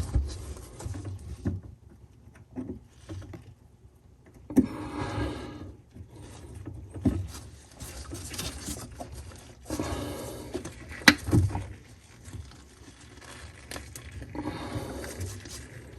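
Allen wrench held in pliers scraping and clicking against metal while loosening a faucet fastener, in bursts of a second or two with a few sharp clicks.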